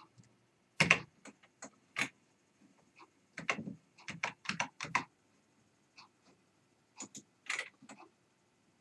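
Irregular clicks and taps from a computer keyboard and mouse, some single and some in quick little runs, the loudest about a second in, at two seconds and near the end.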